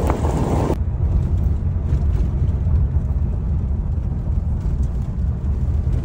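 Steady low rumble of a moving car heard from inside the cabin. A hiss of road or wind noise over it cuts off abruptly about a second in, leaving mainly the low drone.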